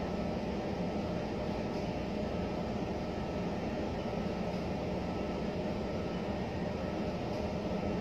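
Steady low background hum and hiss, even throughout, with no clear bird call.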